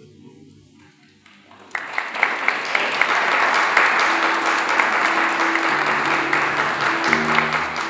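Audience applauding. The clapping starts about two seconds in as the music dies away, and a few held low notes sound under it in the second half.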